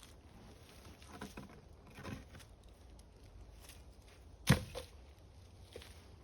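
A few soft knocks, then one sharp knock about four and a half seconds in, followed by a fainter one.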